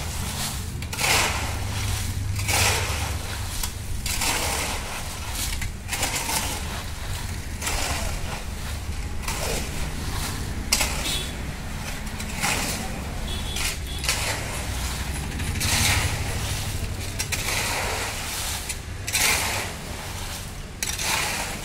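Concrete mixer running with a steady low engine hum while its load churns, giving a recurring scraping, grinding rush every second or two.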